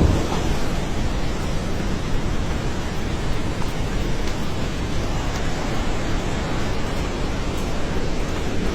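Fast-flowing river water rushing, a steady, even roar of noise.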